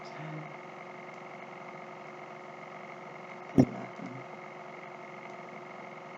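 Steady background hum, with a short low murmur in the first half second and one sharp click about three and a half seconds in, the loudest sound, followed by a brief low sound.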